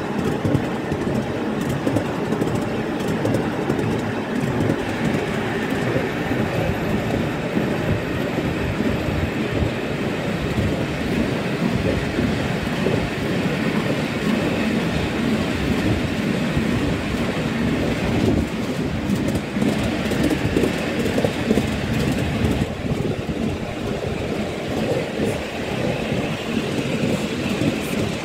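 Miniature railway train running along its track, heard from on board: a steady rumble of wheels on the rails with a fast clatter over the track.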